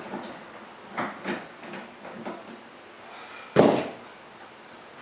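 Metal door handle hardware being worked off a fiberglass door: a few light clicks and knocks, then one loud clunk about three and a half seconds in.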